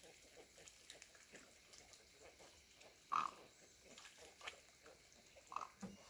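Flock of wading birds feeding in a shallow pool, giving many short calls, with a louder call about three seconds in and another near the end.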